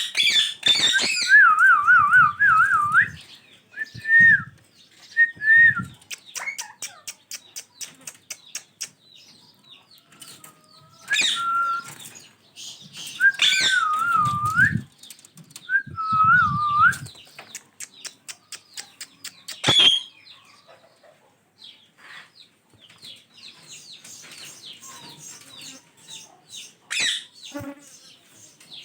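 Ringneck parakeets calling in warbling, wavering bursts, several runs in the first half, mixed with many short sharp clicks and taps. A quieter run of clicks and brief chirps comes near the end.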